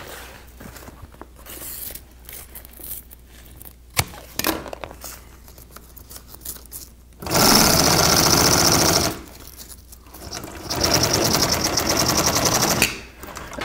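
Industrial sewing machine stitching a Velcro strip onto boat canvas in two short runs of about two seconds each, about seven and eleven seconds in. Between them come quieter handling noises from the fabric being positioned, with one sharp click.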